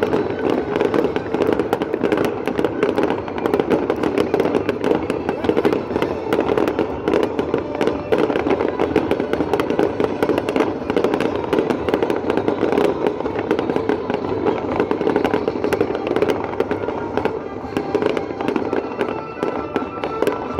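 Fireworks finale: aerial shells bursting in rapid, unbroken succession, a dense barrage of bangs and crackles that eases slightly near the end.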